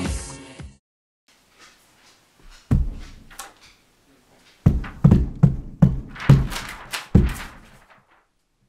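Funk-style music stops abruptly within the first second. A few seconds later comes a run of dull thumps, about two or three a second, irregular and lasting about three seconds.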